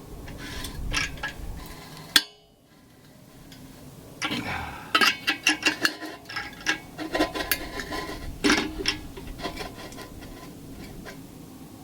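Irregular small metallic clicks and knocks of hand work on hardware, with a sharp click about two seconds in followed by a brief lull.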